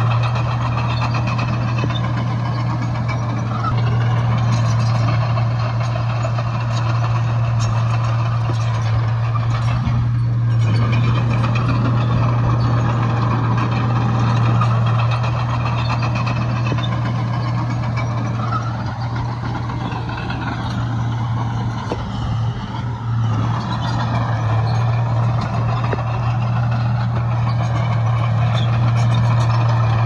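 Diesel engines of heavy earthmoving machinery running steadily, a constant deep hum with shifting engine and mechanical noise above it.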